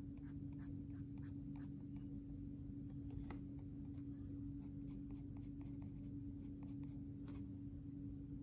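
Graphite pencil scratching on paper in quick, short sketching strokes, a few a second, over a steady low hum.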